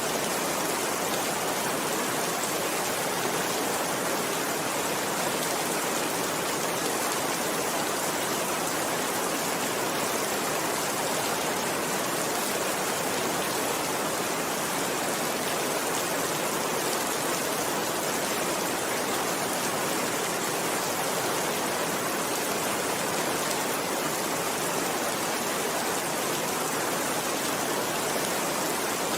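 Steady rain falling on a window: an even, unbroken hiss that holds the same level throughout.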